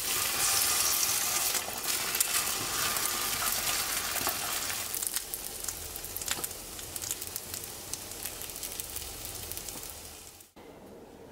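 Egg-dipped gimbap slices sizzling as they fry in a frying pan, with scattered light ticks and pops. The sizzle is loudest at the start, eases off gradually, and cuts off about ten seconds in.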